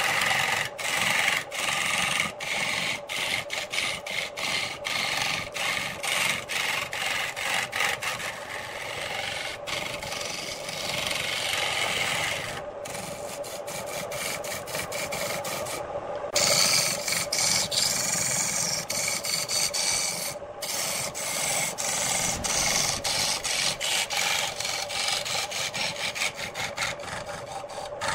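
A turning tool cutting into a wooden blank spinning on a wood lathe and throwing off shavings: a rough scraping hiss, broken by many short dips as the cut eases and bites again.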